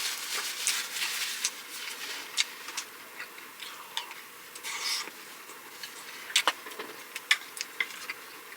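Close-miked eating sounds: soft chewing with wet mouth clicks and smacks, and a few sharper clicks about six and seven seconds in.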